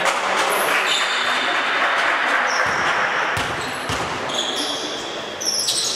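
A basketball bouncing on the gym floor, with about three bounces in the middle, against a steady background noise of the sports hall.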